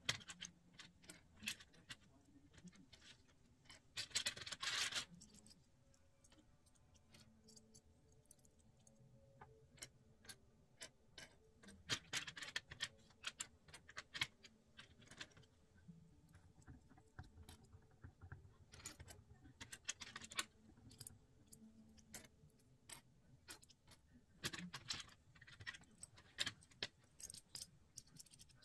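Light clicks and taps of plastic 3D puzzle-ball pieces being picked through, handled and set down on a wooden table, with a few short rattling clatters of pieces stirred together, about four seconds in, about twelve seconds in and near the end.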